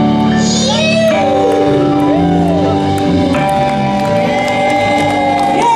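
Background music with long held notes and a sliding melody line arching up and down over them.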